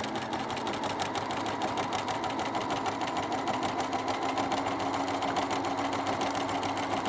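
Bernina B380 sewing machine stitching a blind hem with its #5 blind-stitch foot, running fast and steady: an even motor whir with rapid needle strokes.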